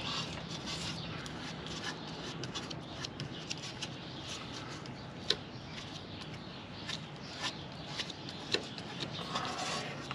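Scattered small clicks, taps and rubbing of hand work with tools and materials, with one sharper click about five seconds in and a faint low hum under the first couple of seconds.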